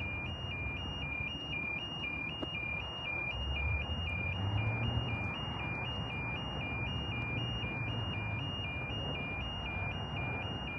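Railway level crossing warning alarm sounding: an electronic signal that flips rapidly and steadily between a higher and a lower pitch, over a low rumble.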